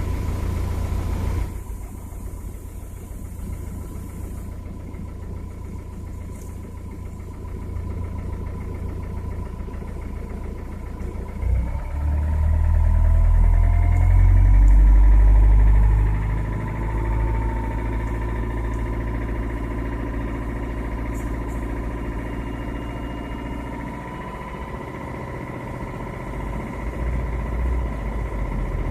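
2.2 dCi four-cylinder common-rail diesel engine running with a knock. About 12 seconds in the revs rise and it runs loudest for about four seconds, then settles back to a steady run.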